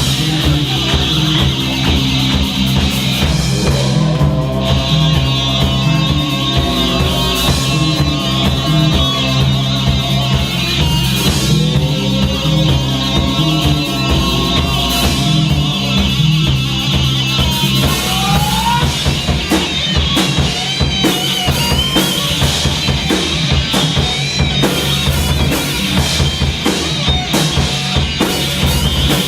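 Live psychedelic stoner-rock band playing an instrumental passage: electric guitar over a drum kit, with the drums coming more to the fore in the second half.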